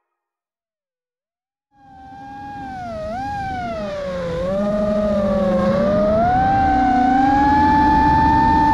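Silence for the first couple of seconds, then the whine of an FPV quadcopter's Xing2 2306 brushless motors and propellers. The pitch dips and rises several times with the throttle, then holds high near the end.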